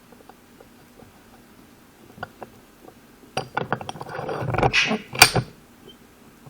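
Small metal parts clinking and rattling as they are handled. There are a few faint ticks, then a busier stretch of clinks and scraping from about three and a half seconds in, with one sharp click at about five seconds.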